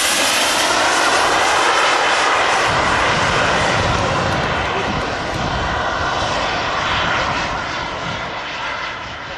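Turbine engines of two large radio-controlled Concorde model jets flying past overhead, a loud steady jet noise that fades over the last two seconds or so.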